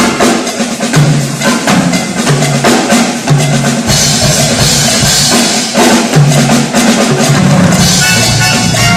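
Military orchestra playing an instrumental passage with the drum kit to the fore: bass drum and snare strokes over a bass line. Cymbals wash in about four seconds in and again near the end.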